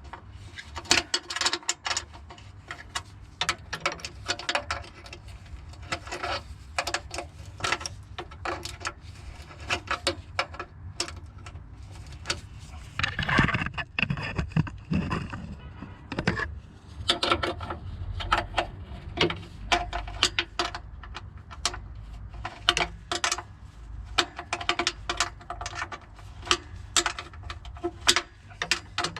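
Irregular metallic clicks, clinks and knocks of hand tools working on the exhaust pipe's loose rubber mounts, with a louder scraping, clattering stretch about halfway through.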